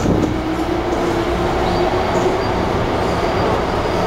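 MTR M-Train electric multiple unit heard from inside the passenger car while running: a steady rumble of wheels on rails with a low hum.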